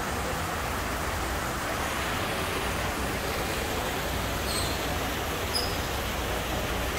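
Steady rushing water of an indoor display waterfall splashing down artificial rocks, with two faint high chirps about halfway through.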